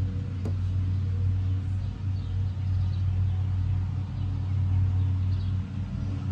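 Steady low hum of an unseen engine or motor running at an even speed, with a single faint click about half a second in.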